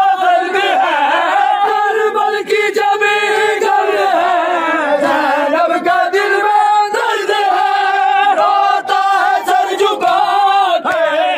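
Crowd of men chanting a noha, a Shia mourning lament, loudly together, many voices overlapping with rising and falling pitch.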